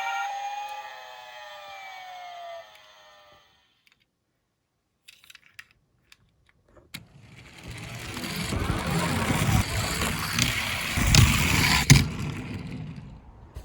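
A toy police car's siren wailing and fading out over the first three seconds. After a pause with a few clicks, a small toy car rolls down a slope, a growing rolling noise of little wheels with clicks that stops shortly before the end.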